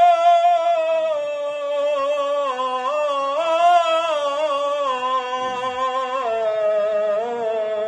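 Man singing a Punjabi naat into a microphone, holding one long unbroken note with slow, ornamented wavers in pitch, which steps down lower about six seconds in.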